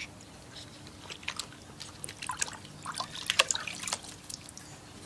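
Water splashing and dripping in a plastic tub as a small dog shifts in the water and climbs out: a scatter of small, irregular splashes, loudest about three and a half seconds in.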